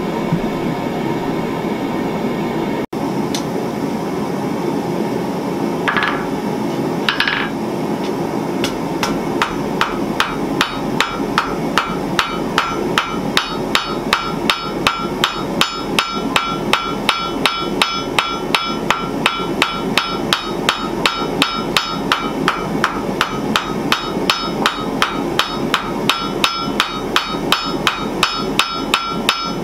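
Hand hammer forging a red-hot spring-steel bar on an anvil, striking steadily at about two blows a second from about nine seconds in, each blow followed by a high ring from the anvil. A steady rushing noise runs underneath.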